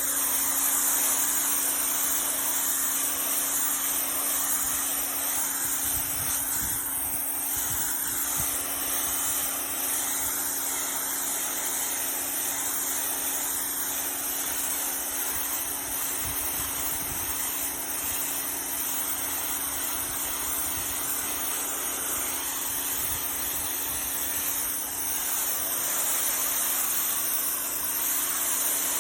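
Pressure washer running: the steady hiss of the high-pressure water jet spraying over a surface, with a steady motor hum underneath.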